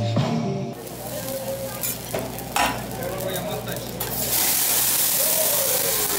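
Food sizzling on a hot steel teppanyaki griddle, with a few sharp clinks of a metal spatula. About four seconds in the sizzle swells into a louder, brighter hiss as a flare-up of flames rises off the griddle.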